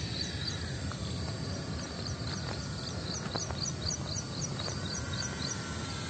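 A bird repeating a short high chirp about three times a second, stopping near the end, over a steady low outdoor rumble.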